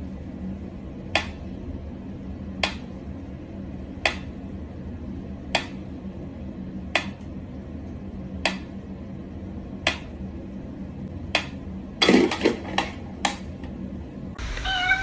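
Mechanical pyramid metronome ticking slowly, one sharp tick about every second and a half. About twelve seconds in, a quick cluster of louder clicks and knocks breaks the beat.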